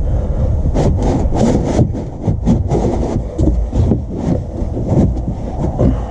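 Close, irregular scraping and rubbing with many small knocks: hands and tools working against the underside of the car.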